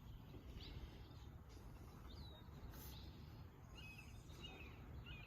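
Near silence outdoors: small birds chirping faintly now and then, a handful of short, gliding chirps, over a low steady background rumble.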